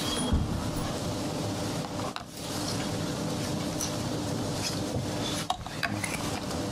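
Press-room background noise: a steady hiss of rustling and shuffling over a low hum, with brief dips in level twice.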